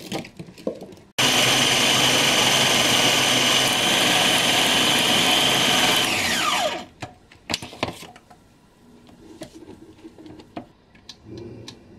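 Kambrook food processor motor chopping apple pieces: it starts abruptly about a second in, runs steadily for about five seconds, then winds down with a falling whine. A few light knocks and clicks follow.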